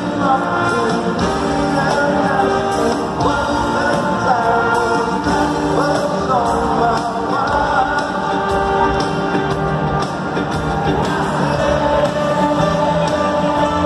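Live rock band playing with a lead singer, heard from among the audience in a large arena.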